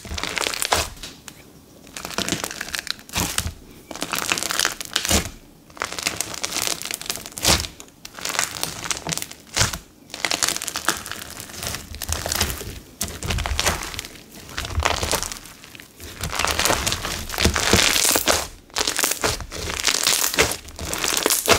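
Crunchy slime mixed with silica being kneaded, pressed flat and squeezed by hand: crispy, crunchy crackling in irregular bursts about once a second.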